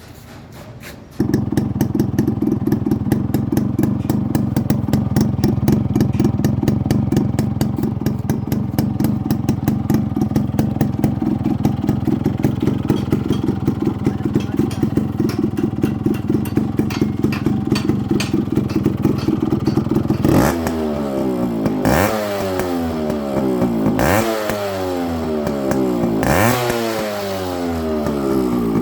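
Restored motorcycle engine running at a steady idle with an even, fast beat. It comes in suddenly about a second in. Near the end the throttle is blipped four times, and each time the revs fall back down.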